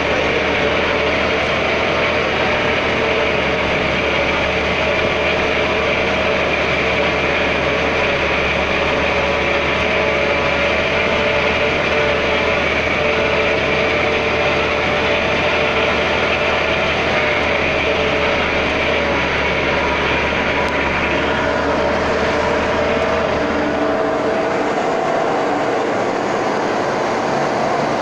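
Truck driving on a dirt road, heard from inside the cab: steady engine and road noise with a wavering mid-pitched whine. Near the end the deepest rumble fades.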